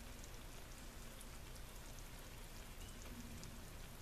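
Faint, steady crackling hiss of the juicy egg casserole sizzling in the hot cast-iron Dutch oven.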